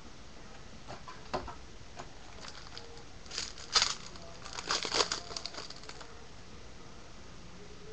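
Foil wrapper of a 2013 Topps Series 1 jumbo pack of baseball cards being torn open and crinkled, in a few short bursts, the loudest in the middle.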